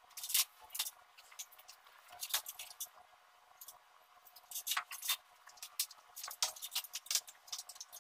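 Scattered light clicks, taps and small scrapes of hand work at a wall: a spirit level, a pencil and a metal mounting bracket being handled while a projection screen is fitted. They are irregularly spaced, with small clusters about two and a half seconds in and around five seconds in.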